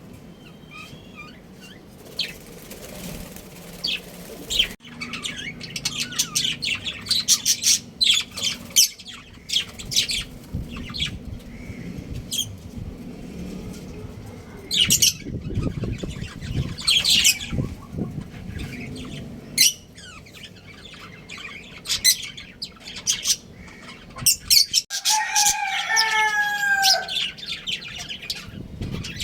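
Budgerigars chirping and chattering in quick, sharp calls, with a few falling squawks near the end.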